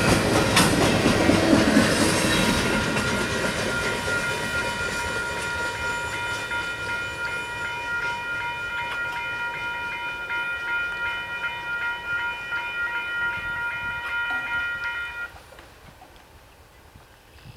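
Freight train's rear boxcars clattering past on the rails, then rolling away and fading. From about two seconds in, a steady high-pitched ringing of several tones holds over the receding train and cuts off suddenly near the end, leaving only faint sound.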